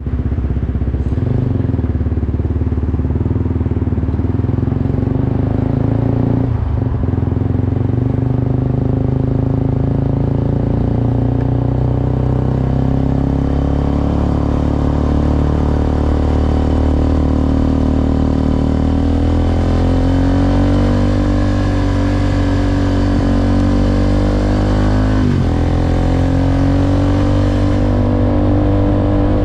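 Suzuki Gixxer SF 250's single-cylinder engine running under way, holding a steady note at first and then climbing gradually in pitch through the second half, with brief dips in pitch about 6 and 25 seconds in.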